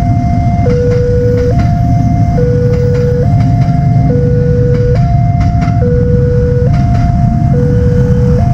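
Railway level-crossing warning siren sounding a steady two-tone alarm, a higher and a lower tone alternating just under a second each. Underneath is the loud rumble of a passenger train running past, with a few sharp clacks from its wheels.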